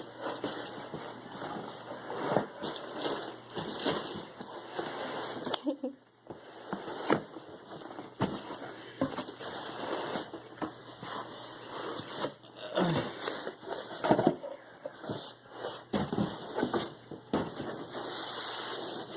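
Plastic cushioning wrap and packaging being handled and pulled apart while unpacking a box: irregular rustling and crinkling with scattered clicks and knocks.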